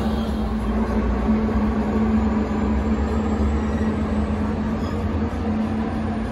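Metra bilevel gallery passenger cars rolling slowly past at platform level: a steady low rumble of wheels on rail under a continuous hum, with a faint high whine slowly rising in pitch from about halfway through.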